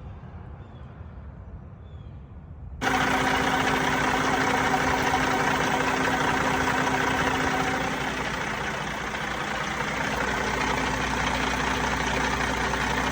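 Kenworth T680 heavy-truck diesel engine idling steadily, cutting in abruptly about three seconds in after a low rumble.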